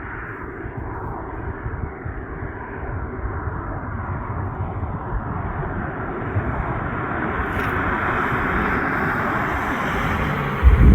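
BMW X5 M with a titanium valved exhaust driving, a steady rumble of engine and road noise that grows slowly louder, with a sudden loud low thump right at the end.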